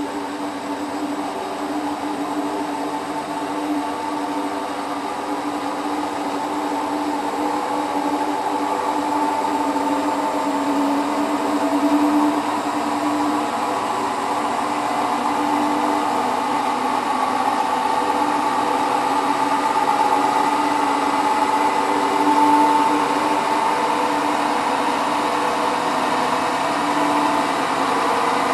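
Hotpoint WT960 washing machine in its 1600 rpm final spin: the motor and drum give a steady whining hum that grows slowly louder.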